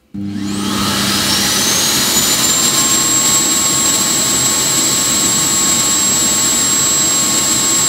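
Roidmi EVA self-emptying base station's suction motor starting up to draw dust out of the docked robot vacuum. It comes on suddenly with a whine that rises over the first few seconds, then runs steadily and really loud.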